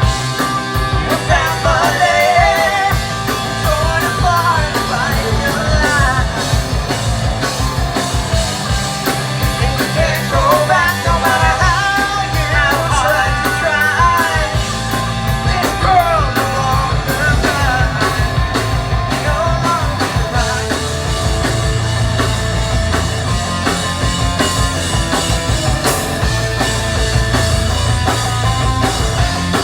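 Live rock band playing a song: a drum kit, bass and guitars keep a steady driving beat. A wavering lead melody, sung or played, rides over the first two-thirds and drops away near the end, leaving the band playing on.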